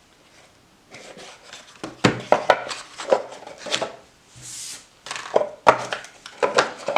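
A folding knife being handled: a string of sharp clicks and taps, with a short sliding rub about halfway through.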